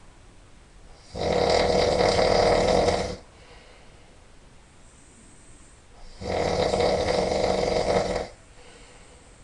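A person snoring really loud: two long snores, each about two seconds, about five seconds apart, with faint breathing between.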